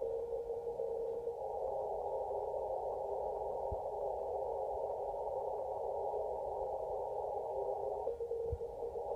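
Receiver audio from a Kenwood TS-850SAT on the 160-metre band, heard through a narrow CW filter: a steady band of hiss with a morse station's tone that stops just over a second in.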